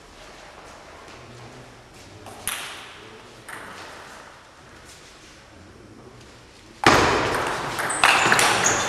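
Table tennis ball clicking a few times off paddle and table. About seven seconds in, a sudden loud noise spreads across all pitches and covers the clicks.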